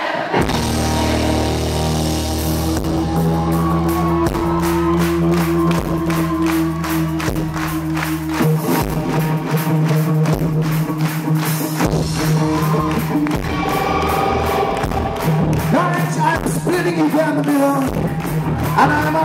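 Live pop-rock band playing: drum kit, bass, electric guitar and keyboard with a male lead vocal, heard loud through a camera in the hall. Held low notes change about eight seconds in, under a steady drum beat.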